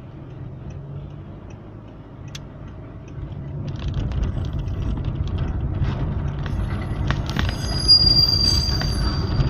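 Car pulling away and driving over cobblestones, heard from inside the cabin: tyre rumble and rattle grow louder about three and a half seconds in. Near the end a high, steady squeal sets in and keeps going.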